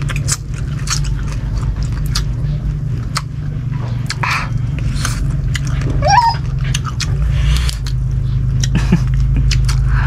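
Close-up chewing and lip-smacking of people eating roasted quail by hand, many short wet clicks over a steady low hum. About six seconds in, a short wavering, rising dog whine.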